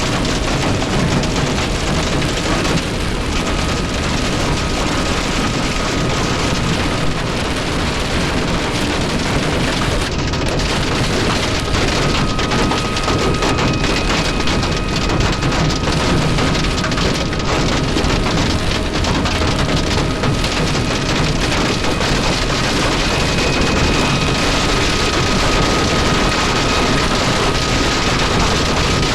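Torrential rain and storm wind from a tornado pounding a semi-truck: a loud, steady wash of noise with no letup.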